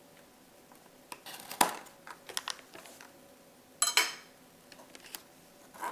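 Knife clicking and scraping on a plate while an Oreo cookie half is cut in two: a few scattered light clicks and knocks, the sharpest about one and a half and four seconds in.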